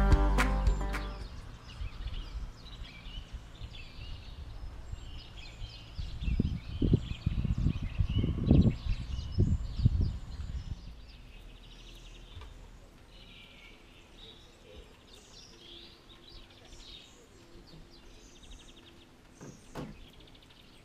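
Small songbirds chirping and singing. Low gusts of wind buffet the microphone for a few seconds in the middle.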